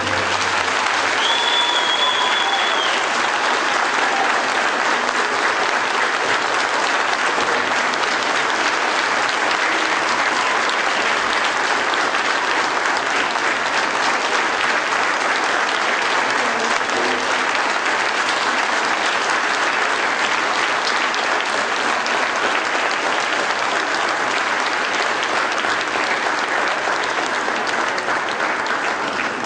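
Audience applauding steadily, with one brief high whistle about a second in.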